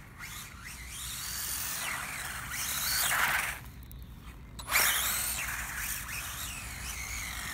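Electric whine of a ZD Racing Raptors BX-16 RC buggy's 3300KV brushless motor, its pitch rising and falling with the throttle. It grows loud around three seconds in, drops off briefly, then comes back suddenly about five seconds in and falls away.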